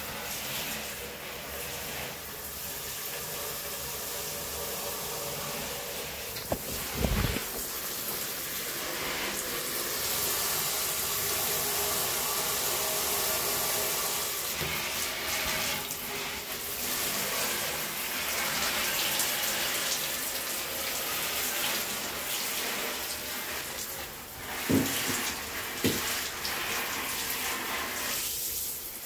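Handheld shower head spraying water onto potted plants in a bathtub: a steady hiss of spray hitting leaves, soil and the tub. A low thump about a quarter of the way in and two sharp knocks near the end.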